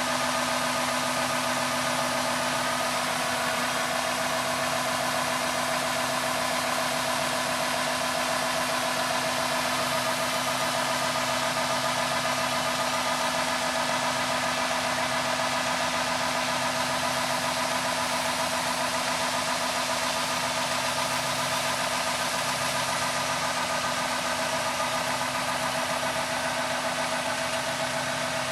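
Farm machinery engine running steadily, a constant drone with a steady whine over it.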